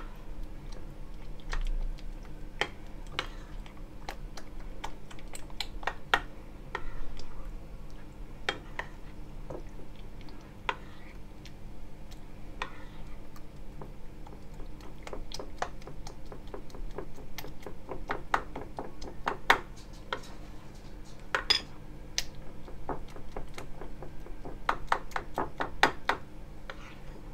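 A utensil clicking and scraping against a small bowl while stirring an egg into thick peanut butter and agave syrup batter. The clicks are irregular and come in quicker runs near the end.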